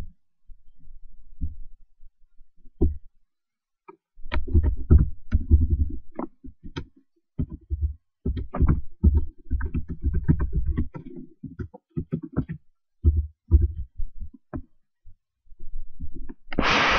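Muffled computer keyboard typing and mouse clicks picked up by a desk microphone as an irregular run of dull thuds and clicks, densest in the middle. A burst of hiss starts just before the end.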